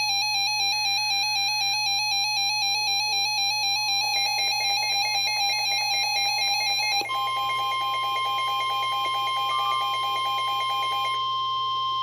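NOAA weather radio sounding a severe thunderstorm warning alert: a repeating electronic alarm pattern for about seven seconds, then a steady single warning tone.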